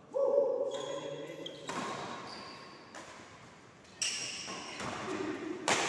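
Badminton rally on an indoor court: rackets striking the shuttlecock with sharp hits about every one to two seconds, with the squeak of court shoes on the floor and echo from the hall.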